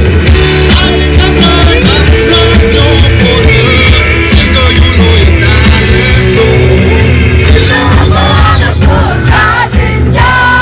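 Live rock band playing, with electric guitars, bass and drums under a male lead singer, heard from within the crowd.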